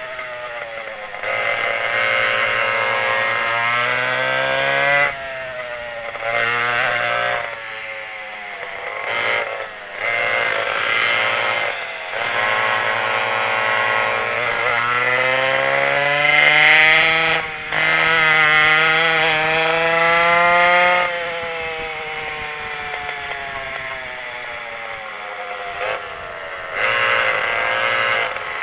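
Twin McCulloch 87 cc two-stroke kart engines at race speed, revving high and dropping off the throttle for corners several times. Midway the pitch climbs for several seconds on a straight, falls away for a few seconds, and picks up again near the end.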